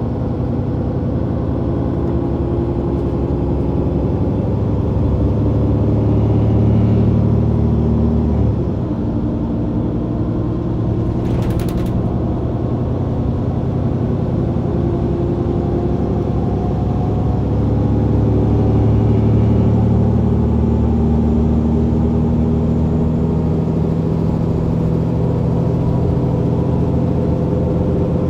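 Mercedes-Benz O530 Citaro bus's rear diesel engine, with its Voith automatic transmission, running under way, heard from directly above the engine. The engine note swells, drops abruptly about eight seconds in, then swells again; a short clatter is heard near the middle.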